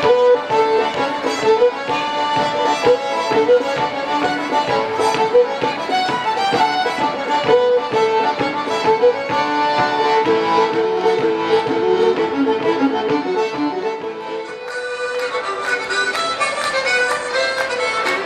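A live folk band playing a lively tune led by a melody instrument. About fifteen seconds in it cuts abruptly to a different piece.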